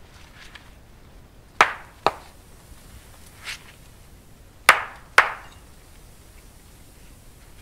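Sharp knocks struck against the trunk of a young snow-laden spruce to shake its snow down: two pairs of blows about half a second apart, with a fainter one between them, each dying away quickly.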